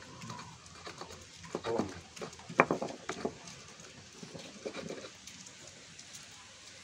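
Stone pestle pounding and grinding chillies, shallots and tomatoes in a volcanic stone mortar (cobek and ulekan): irregular stone-on-stone knocks and crushing, the loudest about two and a half seconds in. The strokes thin out and stop after about five seconds.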